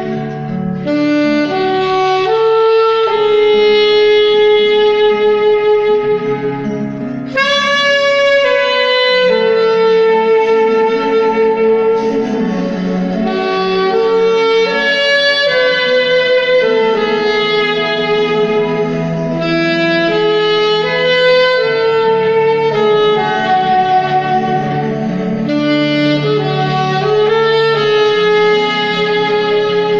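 Alto saxophone playing a slow melody of long held notes over an accompanying track of sustained low chords, with a brief breath pause about seven seconds in.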